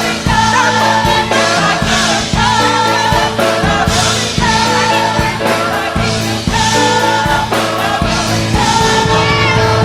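Choir singing gospel-style worship music over a steady beat, with held and wavering vocal lines.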